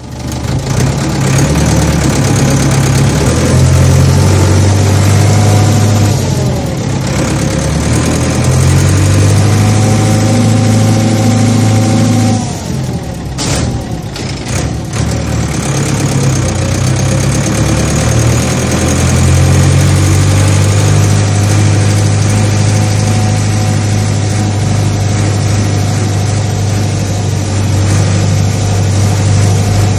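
Heavy farm machinery engine running steadily. Its note shifts a few seconds in, and it dips briefly with a couple of clicks about halfway through before settling back to a steady hum.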